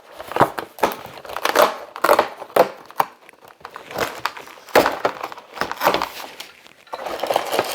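LEGO advent calendar packaging being opened by hand: irregular crinkling, rustling and tearing of cardboard and plastic, busiest near the end.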